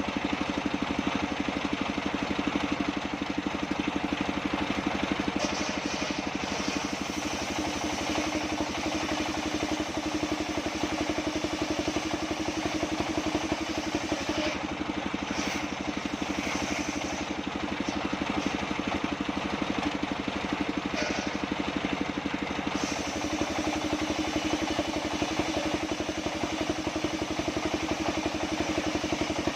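Band sawmill running steadily with a continuous machine drone and rapid fine pulsing. Its low hum eases off for several seconds in the middle, then comes back.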